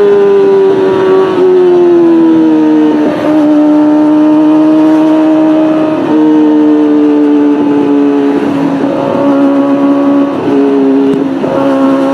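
Kawasaki Ninja ZX-25R's 250 cc inline-four running loud at high revs through a Beet Japan Nassert R Evolution exhaust with no catalytic converter. The high engine note eases down in pitch over the first few seconds, then holds fairly steady, with brief breaks a few times.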